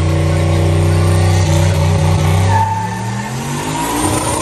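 Car engine held at high revs during a burnout, running steadily, then the pitch shifts and the revs begin to fall off near the end.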